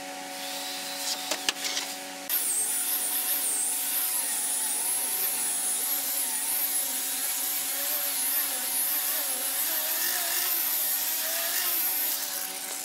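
Handheld angle-grinder-type rotary sander with a round sanding pad starts about two seconds in and runs over the face of a wooden raised-panel cabinet door, with a high wavering whine. It stops just before the end. A steady hum runs underneath throughout.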